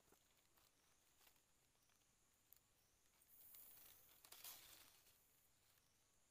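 Near silence, with faint small clicks and a soft rustle of hands working a small object, loudest between about three and five seconds in.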